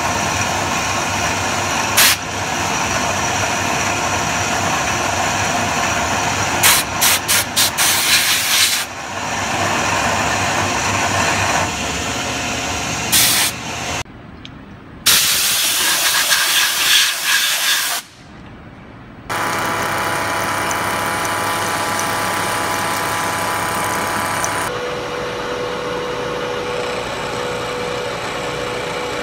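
Tormach PCNC 1100 CNC mill cutting aluminium with an end mill: steady spindle and cutting noise with a coolant hiss, broken into several clips that change abruptly, with sharp clicks around 2 s and a quick run of clicks between about 7 and 9 s. A steady whine holds through the last few seconds.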